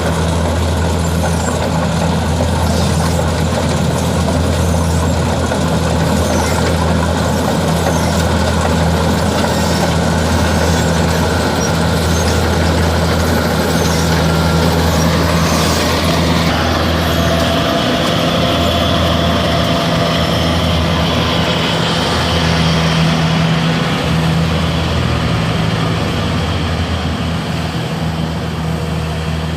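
Kubota DC-60 rice combine harvester running, its diesel engine giving a steady low drone under the noise of its machinery. The higher part of the noise drops off abruptly about halfway through.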